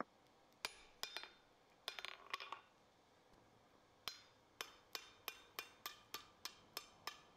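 Hand hammer striking a red-hot steel bar held over a hardy cutter on an anvil, cutting a piece off the bar. A few spaced ringing blows, then steady blows about three a second from about four seconds in.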